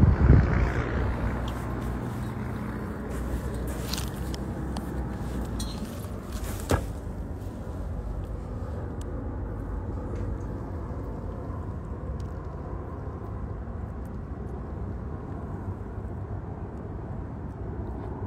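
Wind buffeting the phone's microphone in loud low gusts that die down about a second in, leaving a steady low rumble of background noise. There are a few faint clicks, and one sharper click about seven seconds in.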